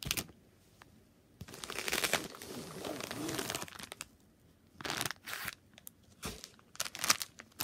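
Plastic packaging crinkling and rustling as it is handled: one longer stretch starting about a second and a half in, then shorter bursts and a few light clicks.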